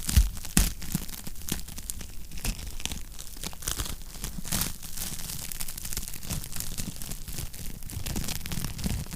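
Wood fire crackling in a fireplace: dense, irregular snaps and pops over a low rumble of the flames, with two louder pops just after the start.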